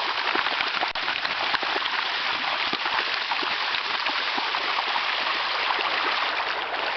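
Flowing river water, a steady rushing babble.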